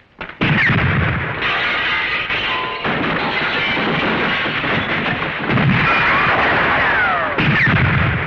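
Loud intro soundtrack: music mixed with blast-like effects, with sliding tones and abrupt changes every second or two.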